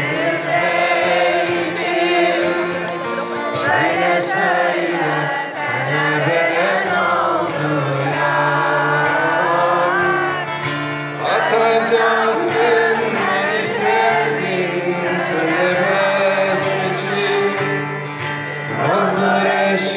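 Live band music: a male voice singing over electric guitar, with many voices in the crowd singing along. Heard from among the audience.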